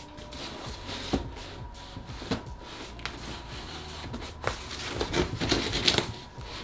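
Cardboard shipping box being cut open with a long blade: scraping and slicing through packing tape and cardboard, with several sharp knocks of the blade and box and a busier stretch of scraping near the end.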